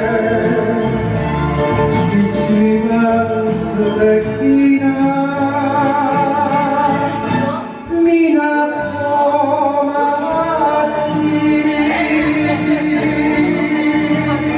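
A singer singing a Japanese popular ballad into a handheld microphone over a karaoke backing track, with long held, wavering notes. The sound drops briefly just before the middle, then the singing and accompaniment carry on.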